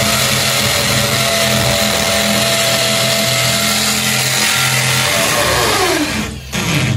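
Corded Black+Decker electric drill with a 1/8-inch masonry bit running at full speed, boring into a wall. About five seconds in, its motor winds down with a falling whine as the drill loses power, having come unplugged.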